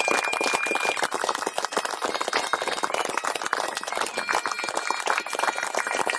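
A crowd of students clapping without a break, dense, overlapping applause.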